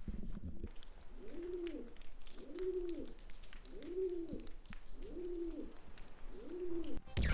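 Pigeon cooing: five low coos, each rising then falling, evenly spaced a little over a second apart.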